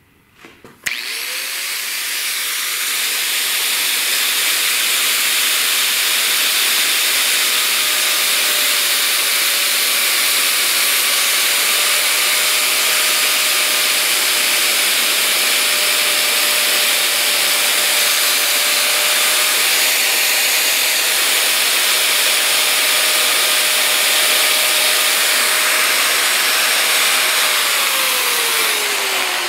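Black & Decker angle grinder starting up about a second in and running steadily at a constant pitch as it cuts straight through a nylon braided hose with stainless strands, scorching the braid ends as it goes. Near the end the motor's pitch falls as it begins to spin down.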